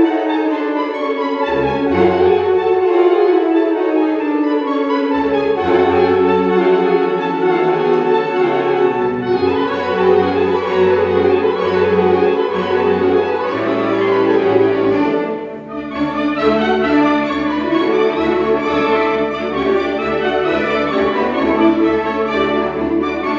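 Saxophone ensemble of alto, tenor and baritone saxophones playing a piece together in sustained chords over low bass notes, with a short dip in the sound about two-thirds of the way through before the full ensemble comes back in.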